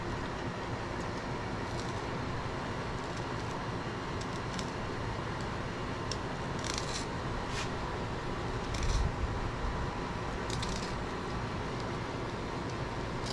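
Faint scraping and crackling of a knife cutting and peeling the hard-scaled hide of a gar, with a few short scrapes in the second half, over a steady background hiss. A low bump about nine seconds in.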